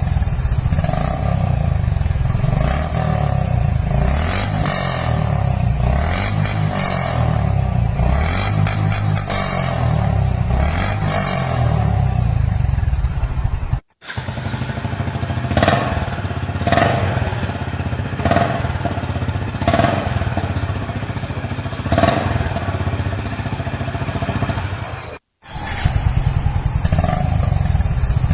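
Honda H'ness CB 350's single-cylinder engine running through its stock exhaust, steady at first. After a sudden cut it is blipped with short throttle revs about once every second and a half, then a second cut brings back steady running near the end.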